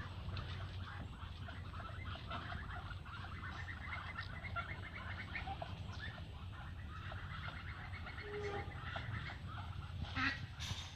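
Domestic ducks calling softly in rapid chattering trills, with a brief louder, sharper sound near the end.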